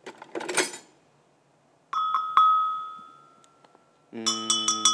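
A pair of conical metal bells shaken by hand: two clanging strikes about two seconds in that ring out and fade, then a quick run of clinking strikes near the end.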